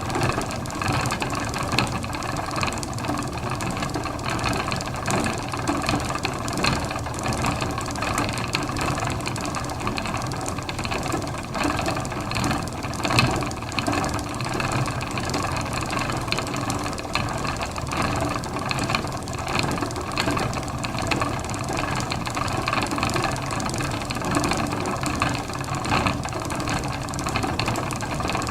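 Old wooden spinning wheel turning steadily, a continuous mechanical rattle and whir.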